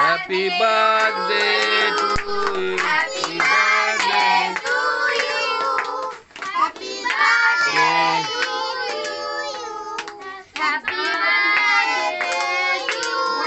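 A group of children and adults singing a birthday song together while clapping along, as the birthday cake's candles are blown out and the cake is cut.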